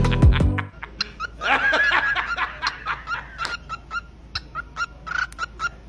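Music cuts off under a second in. Then a pet parrot gives a long run of short laugh-like notes, about four a second, mimicking laughter.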